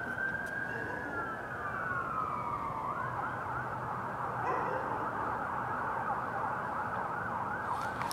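Police car siren sounding a slow rising and falling wail that switches to a fast yelp about three seconds in.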